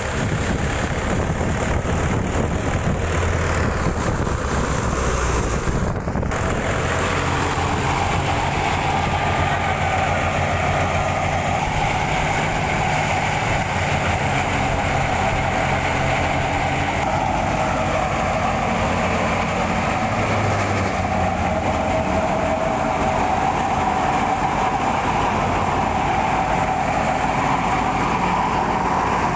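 Wheat-harvesting machine running steadily: a constant loud engine and machinery noise with a steady held tone.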